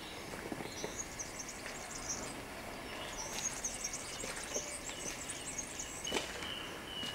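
Outdoor background with small birds chirping and twittering in quick high clusters, twice, and a short whistled note near the end. A couple of faint knocks.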